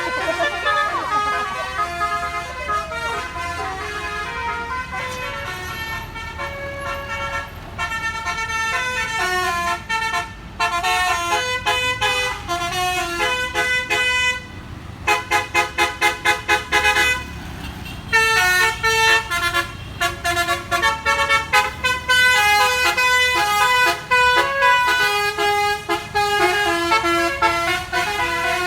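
Basuri telolet multi-tone air horn on a bus playing a melody of changing notes, with a run of short rapid toots, about four a second, about halfway through, over a low engine rumble.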